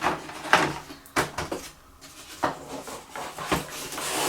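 Handling of a boxed replacement laptop battery and its packaging: about five separate light knocks and clatters with rustling between them.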